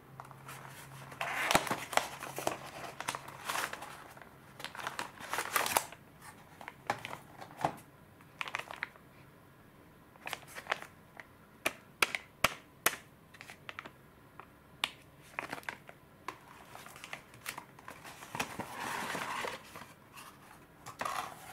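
Paperboard box and plastic packaging being handled: stretches of rustling and scraping, with many separate sharp clicks and taps of plastic in between.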